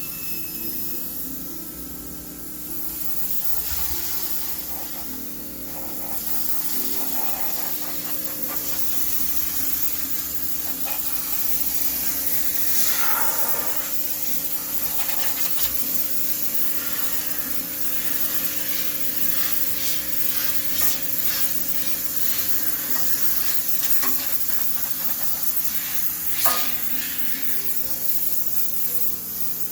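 High-pressure steam cleaner jetting steam with a steady hiss while sterilizing a washing machine, with rubbing sounds and a few sharp knocks, over a steady low hum.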